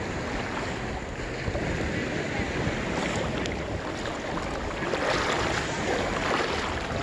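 Wind buffeting the microphone over the wash of sea waves, with a louder surge of water noise about five seconds in.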